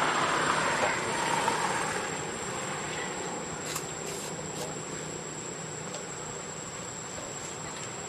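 Outdoor background noise: a steady low hum under an even hiss, louder for the first two seconds, with a thin steady high tone and a few faint ticks around the middle.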